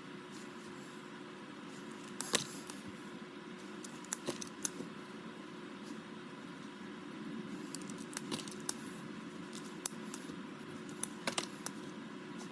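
Scattered small, sharp plastic clicks and taps, about a dozen in small clusters, as alcohol-ink blending markers are uncapped, recapped and set down during colouring, over a faint steady hum.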